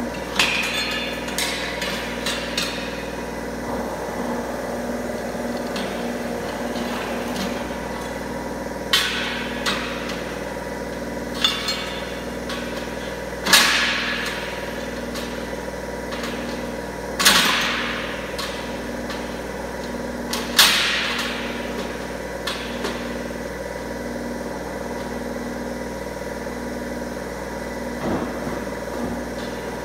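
Angle-bar roller bending machine running with a steady hum while a steel angle bar is worked through its rollers, giving sharp metal clanks that ring on; the clanks cluster in the middle, the loudest three a few seconds apart.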